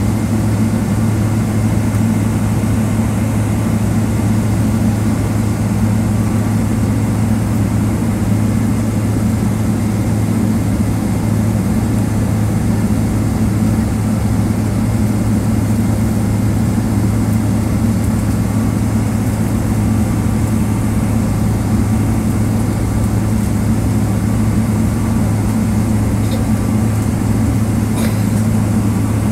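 Cabin noise inside a Boeing 777-300ER taxiing: a steady low hum from the GE90 engines and cabin air system, with no change in pitch or level.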